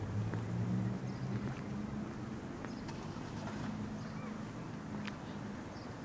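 Steady low engine hum, a little louder in the first couple of seconds, with a few short bird chirps and clicks over it.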